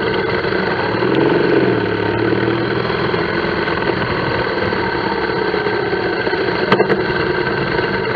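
Motorcycle engine running at low speed in slow traffic, with a brief rise in pitch about a second in and two sharp clicks near the end.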